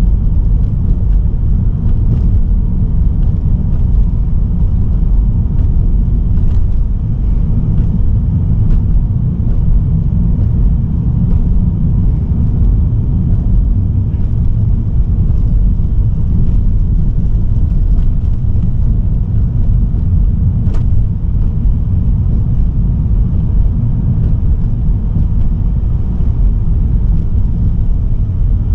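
Steady low rumble of a car on the move, with tyre and road noise heard from inside the cabin. There is one brief click about two-thirds of the way through.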